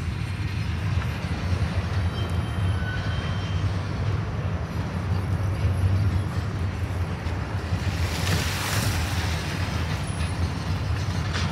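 Steady low rumble of a manifest freight train's cars rolling past, with a rushing hiss that swells and fades about eight seconds in.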